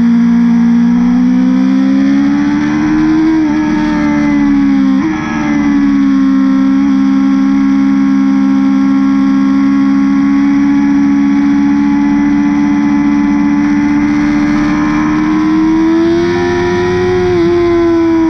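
BMW S1000RR inline-four engine with an Akrapovic exhaust, recorded onboard and running under load at fairly steady revs. Its pitch climbs slowly twice, with a brief dip about five seconds in.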